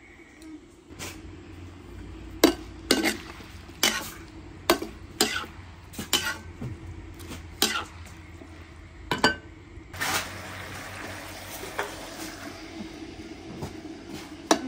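Metal spoon stirring pork and cabbage in an electric frying pan, knocking and scraping against the pan with repeated sharp clanks, and frying sizzle coming in about ten seconds in.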